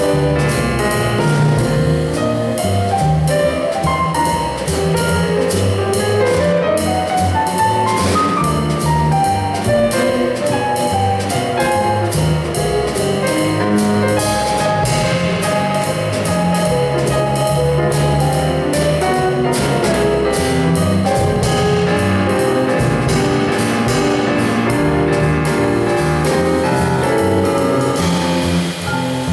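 Jazz trio of grand piano, plucked double bass and drum kit playing, with a busy piano line over the bass and cymbal strokes.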